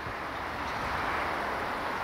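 A steady rushing noise with no clear tone or rhythm, swelling slightly over the first second.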